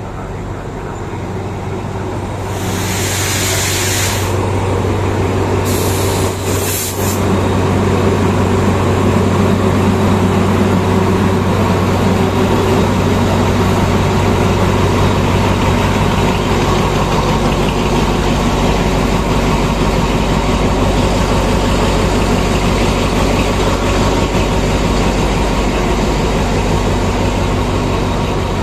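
State Railway of Thailand diesel-electric locomotive 4216 running with a steady low engine hum, growing louder as it draws up close. Two short bursts of hissing air from the air brakes come a few seconds in.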